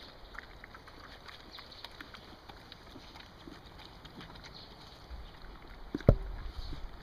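Three Hovawart puppies eating raw food from a plastic bowl: a steady patter of small smacking, licking and chewing clicks. About six seconds in there is one loud knock as the bowl is pushed and tips.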